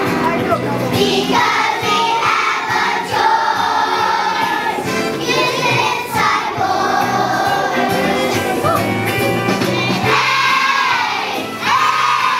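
A choir of young children singing a song together with musical accompaniment.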